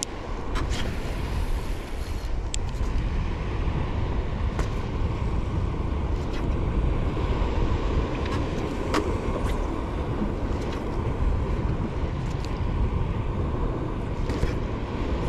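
Steady low rumble of wind on the microphone and water against a small boat's hull, with a few sharp ticks scattered through it from a spinning reel being worked during a micro-jig retrieve.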